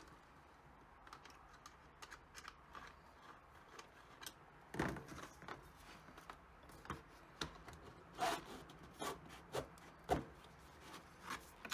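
Scattered light clicks, taps and scrapes of hands working on a 3D-printed plastic router mount with a hose clamp, then fitting a router motor into it; a few firmer knocks about five, eight and ten seconds in.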